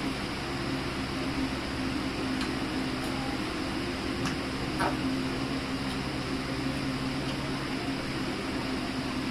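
Electric fan running with a steady low hum and hiss, with a few light clicks of utensils.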